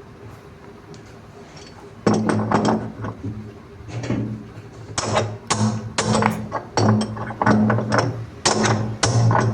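Hammer blows on a spanner, tightening the 38 mm centre chuck nut on a top-load washing machine's drum shaft. About ten sharp metallic strikes, irregular at roughly one or two a second, start about two seconds in, each with a low ring.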